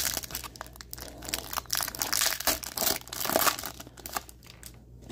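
Foil wrapper of an Upper Deck AEW trading-card pack being torn open and crinkled by hand: a dense crackling rustle, loudest around two to three and a half seconds in, that dies away near the end.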